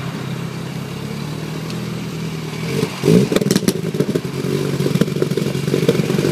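Modified twin-turbo Mitsubishi Lancer Evolution engine idling steadily, then revved about three seconds in and held on its launch-control (2-step) limiter, which breaks the revs up into a rapid, irregular crackle of exhaust pops and bangs.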